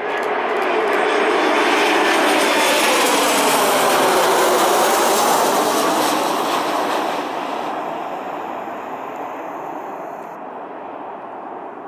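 Embraer E190 jetliner's two turbofan engines passing low overhead on landing approach, gear down. The engine noise swells, its whine sweeps down in pitch as the jet passes, and it fades away over the last few seconds.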